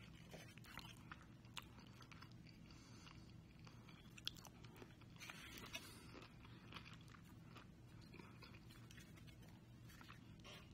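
Faint sounds of a person chewing food with the mouth closed, with small scattered mouth clicks and a sharper click about four seconds in.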